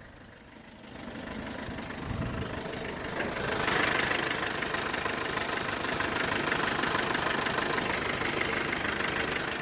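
Mercedes-Benz Sprinter 313 CDI's 2.1-litre diesel engine running, the sound building over the first few seconds and then holding steady. No squeak is heard: the alternator that caused it has been replaced.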